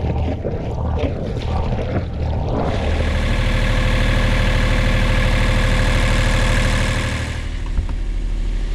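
A boat's small diesel generator running steadily, the first time it has run since its starter battery was replaced. The owner says it could run a little smoother and thinks the injectors may need cleaning. It is louder and fuller from about three seconds in, heard close up in its compartment, and drops back shortly before a latch clicks near the end.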